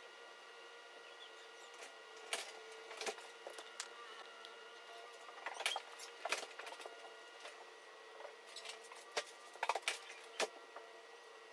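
Chinese mantis chewing a wolf spider: faint, irregular crunching clicks in small clusters, over a faint steady hum.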